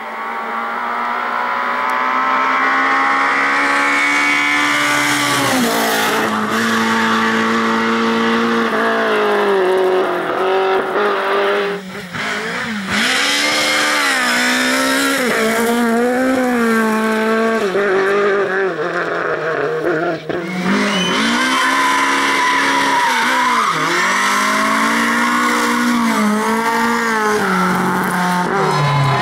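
Lada rally car engine revving hard, pitch climbing and falling again and again through gear changes and lifts, with tyre squeal as the car slides.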